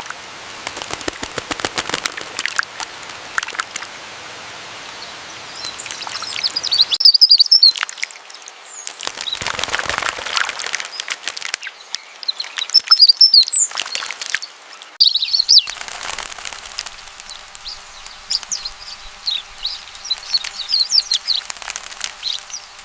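Many birds chirping and calling together, a dense chatter of short calls with clusters of high chirps at several points.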